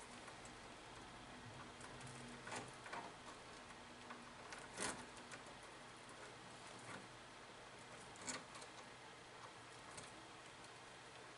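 Faint, scattered clicks and ticks of pliers working copper wire in a plastic electrical box. The sharpest clicks come about 5 s and about 8 s in.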